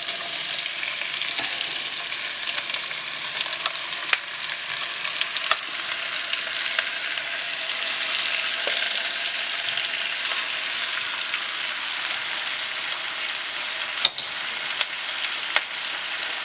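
Thinly sliced onions frying in hot coconut oil, a steady sizzle as they begin to sauté. A few sharp knocks come through it, the loudest about fourteen seconds in.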